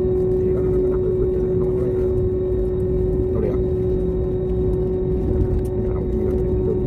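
Airliner's jet engines heard from inside the passenger cabin: a steady roar with a constant droning hum.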